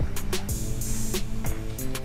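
Background electronic music with a steady drum beat.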